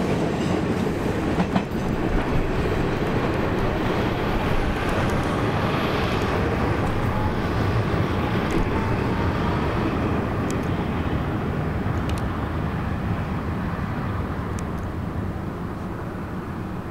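New York City Subway R160 train pulling away along the track, a steady running noise of wheels on rail that eases off over the last few seconds.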